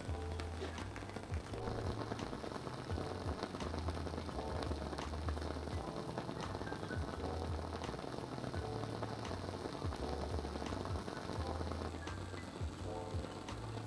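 WoodWick Hearthwick candle's wide wooden wick crackling as it burns, with many small irregular pops like a campfire, over background music.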